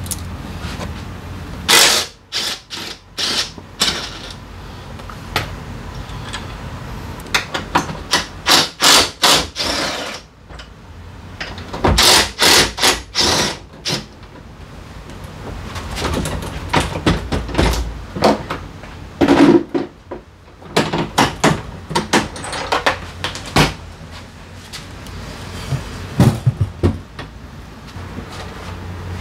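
Hand tools clicking and knocking against metal and plastic parts of a Honda SCR100 scooter during spark plug replacement, in short clusters of sharp clicks a few strokes a second, with a low steady hum between them.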